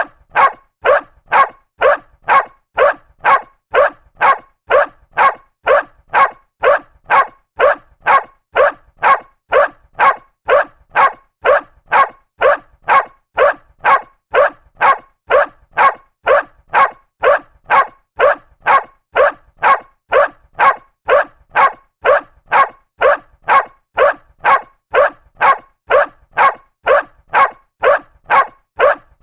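A dog barking over and over at an even, unchanging pace, nearly two barks a second, each bark short and alike.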